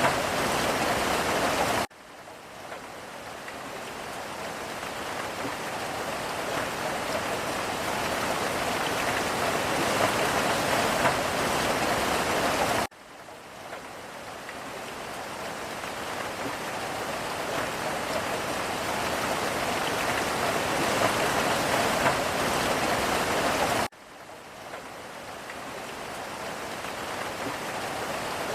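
Steady rain falling, heard from a boat window: an even hiss of drops. The sound drops sharply three times, about 2, 13 and 24 seconds in, and swells back to full over about ten seconds each time.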